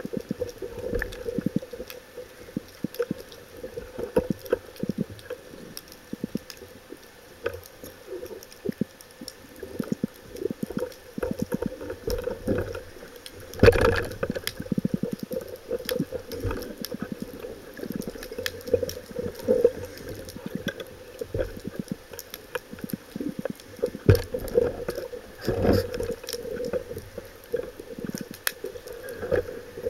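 Underwater sound picked up through a camera housing: a steady water noise with frequent irregular clicks and knocks, one louder knock about 14 seconds in.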